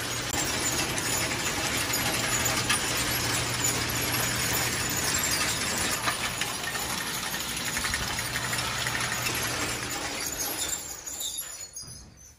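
Hay elevator and overhead bale conveyor running, its chain and paddles clattering and rattling over a steady low hum. The noise drops away near the end.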